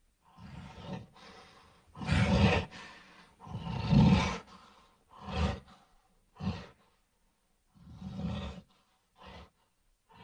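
Gorilla roaring and grunting in a series of short, rough calls separated by pauses. The loudest come about two and four seconds in, and they shorten to brief grunts near the end.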